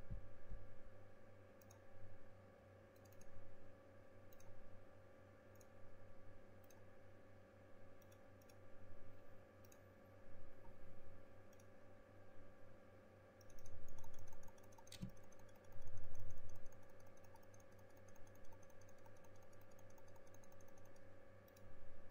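Irregular clicking of a computer mouse and keyboard, over a steady low hum, with a couple of duller low thumps about two-thirds of the way in.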